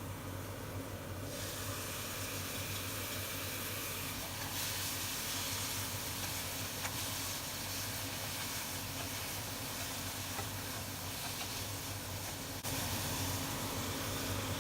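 Food sizzling steadily in a frying pan over a low steady hum. The sound steps up abruptly near the end.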